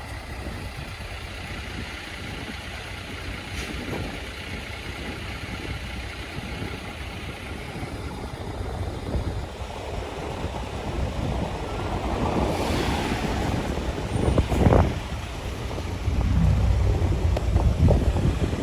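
Large diesel trucks running at low speed, a steady low engine rumble. A short hiss of air comes about twelve and a half seconds in, a sharp knock follows about two seconds later, and the engine noise grows louder near the end.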